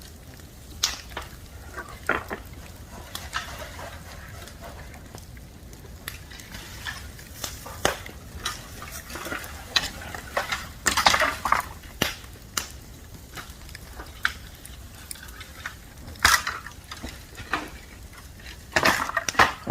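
Bamboo bonfire crackling, with irregular sharp pops and snaps and a denser run of crackles about halfway through.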